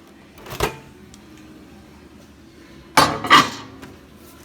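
A plate with a quesadilla being put into a microwave oven: a light knock about half a second in, then two loud clunks of dish against glass and metal about three seconds in.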